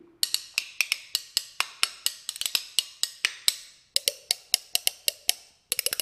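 Two plain, straight metal spoons held back to back between the fingers, played as a percussion instrument. They give a rhythm of sharp clicks at about four or five a second, break off briefly about four seconds in, then go into a fast rattling roll near the end.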